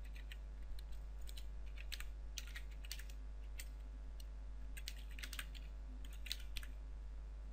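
Typing on a computer keyboard: irregular keystrokes in two short runs with a pause of about a second around the middle.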